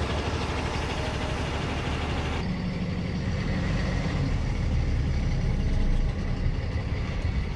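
A heavy truck's diesel engine running on the move, with road noise. About two and a half seconds in, the higher hiss drops away and the low engine drone grows a little louder.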